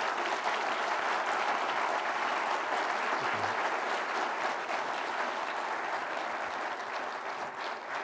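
A large audience applauding steadily, the clapping easing a little near the end.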